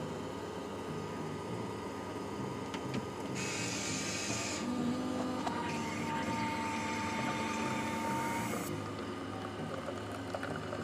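Push-button coffee vending machine running as it brews an espresso: a steady mechanical hum, a burst of hissing about three and a half seconds in, then a higher whirr with a steady whine for about four seconds while the coffee pours into the cup.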